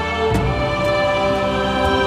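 Background music: sustained chords with a light tick about twice a second, the chord changing about a third of a second in.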